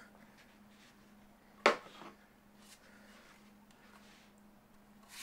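Handling noise from a Tiberius T8.1 paintball pistol and its loaded magazine: one sharp click a little under two seconds in, then a few faint ticks. A faint steady hum runs underneath.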